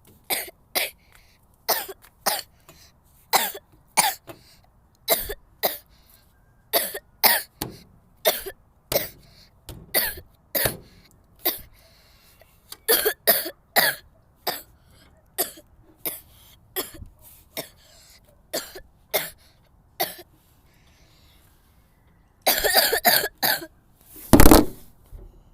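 A girl coughing in a long fit: sharp single coughs about every half second to second, then a short pause, a quick run of coughs, and one loud, heavier burst near the end.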